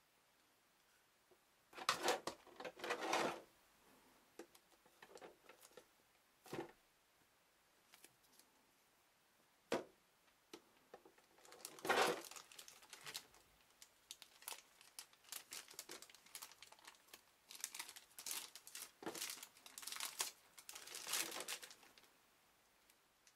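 Clear plastic blister tray and thin plastic bag crinkling and crackling as a figure is lifted out of its packaging, in irregular bursts with a few sharp single clicks; the crinkling is densest through the second half.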